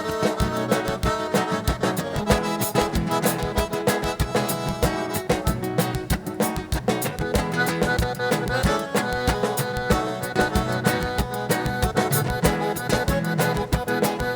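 Instrumental passage of gaúcho dance music led by a button or piano accordion (gaita), over a steady, even drum beat.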